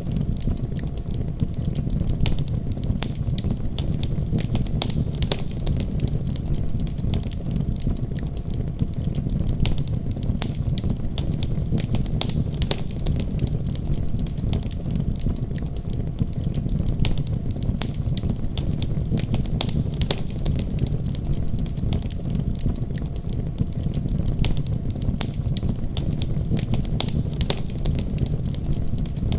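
Wood fire burning in a fireplace: a steady low rumble of the flames with frequent, irregular sharp crackles and pops.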